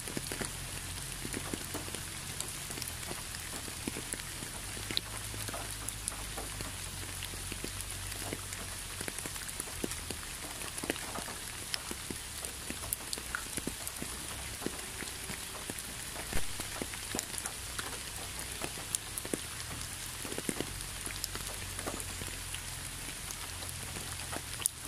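Steady rain falling, with many scattered drops ticking individually against a surface and a low rumble underneath. One drop hits more loudly about two-thirds of the way through.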